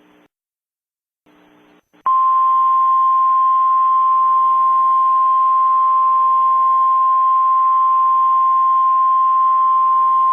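NOAA Weather Radio 1050 Hz warning alarm tone: a single steady, loud beep that starts abruptly about two seconds in and holds unbroken over faint radio hiss. Before it there is faint static with a brief dropout.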